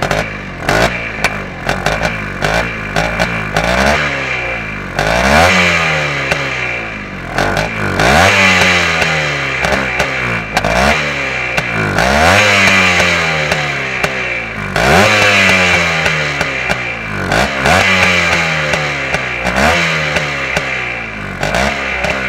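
1965 Greeves 250 Challenger's single-cylinder two-stroke engine just fired up and being blipped over and over, its pitch rising and falling every two to three seconds with the ring-a-ding-ding typical of an old two-stroke.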